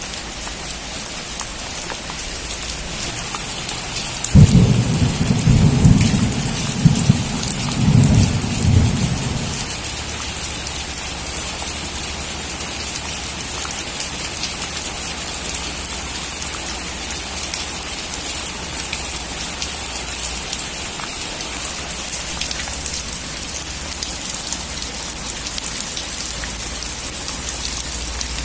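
Heavy rain drumming steadily on a metal roof. About four seconds in, a sudden thunderclap breaks into low rumbling that fades out after about five seconds.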